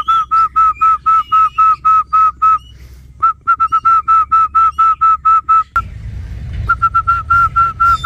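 A person whistling one short note over and over, about five a second, in three runs with brief pauses between, calling a zebra dove to a handful of seed.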